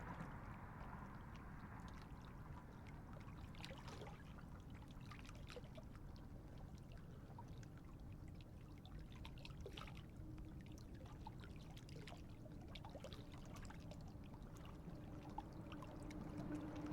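Faint water lapping and trickling at the lake's edge, with scattered light ticks. A low motor-boat hum grows in near the end.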